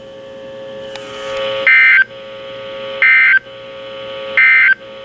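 Three short bursts of Emergency Alert System SAME data tones from a NOAA Weather Radio broadcast, a harsh two-tone warble repeated about every 1.3 seconds. A steady hum with hiss runs between them.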